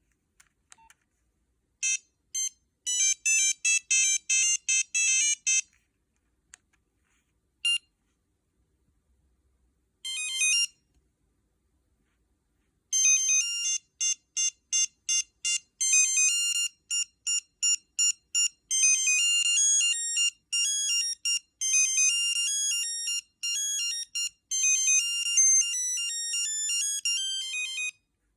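Nokia 6340i ringtones playing one after another on the phone's speaker: high, beeping melodies sounded one note at a time. A quick run of notes comes about two seconds in, a short snippet at about ten seconds, and a longer tune from about thirteen seconds on, with silent gaps between them.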